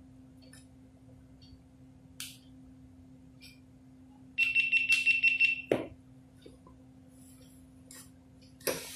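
Small clicks and knocks of a GoPro camera and its plastic mount being handled and fitted. About halfway through comes a rapid run of ringing ticks lasting just over a second, then a sharper click, and another click near the end.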